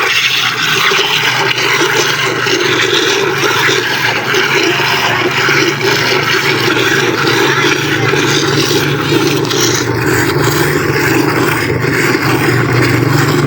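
A machine running steadily: a low, even hum under a dense, unbroken noise.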